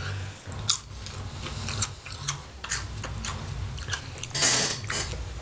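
Crunchy potato chips being chewed, with scattered sharp crackles and a louder noisy rush about four and a half seconds in.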